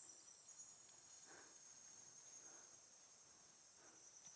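Near silence with a faint, steady high-pitched insect chorus, crickets calling, and a few faint soft sounds.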